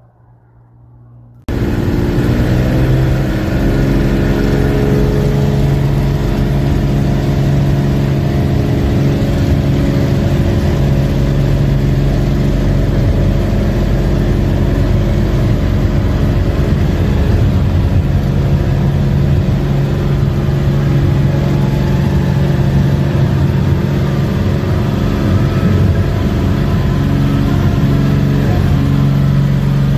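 Cessna 206 single piston engine and propeller running steadily and loudly, a droning stack of pitches that barely shifts. It cuts in suddenly about a second and a half in, after near-quiet.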